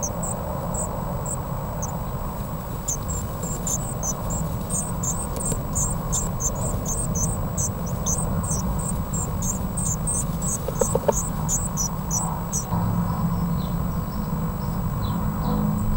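Blue tit nestlings begging in the nest box: a rapid stream of thin, very high-pitched cheeps that stops abruptly about three-quarters of the way through, leaving only a few fainter, lower cheeps.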